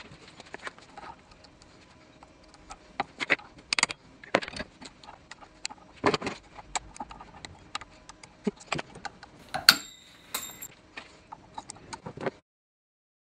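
Irregular clicks, knocks and metallic clinks of hands handling a driveshaft U-joint yoke and its steel snap rings in a bench vise, with two short ringing metal taps about ten seconds in.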